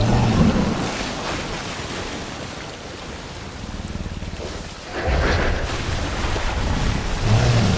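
Film sound effects of a giant gorilla in a river: churning, splashing water throughout, with a deep rumble near the start and again from about five seconds in as it charges through the water.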